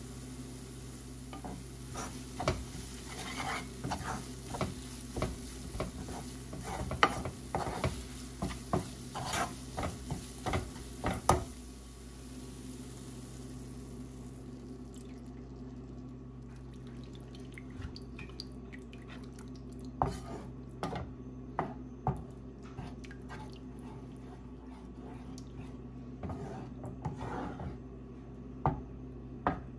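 A utensil stirring sauce in a nonstick frying pan, scraping and tapping against the pan in quick clicks through the first half and only now and then later, over a steady low hum.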